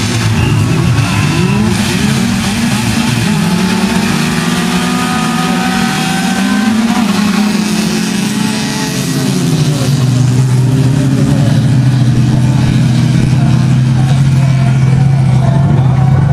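Several stripped-down old hatchback race cars revving and accelerating together on a dirt track, their engine notes overlapping and rising and falling. From about ten seconds in, one steady engine drone dominates.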